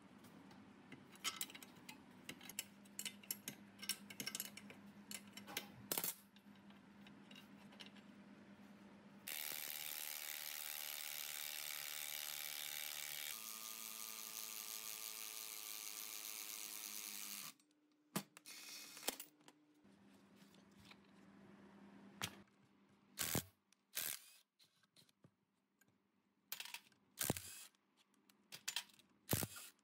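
Ratcheting wrench clicking on the compressor's flywheel pulley bolt. Then a DCA 20V cordless driver runs steadily for about eight seconds, turning the screw of a three-jaw gear puller to draw the pulley off, with its pitch shifting partway through. It is followed by scattered sharp clicks and knocks of hand tools.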